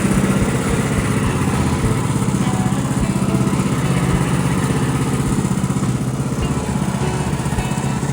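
Woodland Mills HM126 sawmill's small gasoline engine running steadily under load with an even, pulsing beat.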